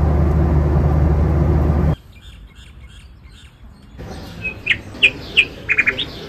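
Steady, loud drone of an airliner cabin in flight, with a low hum under it, cutting off suddenly about two seconds in. After a quieter stretch, birds start chirping in short, quick calls, several in rapid runs.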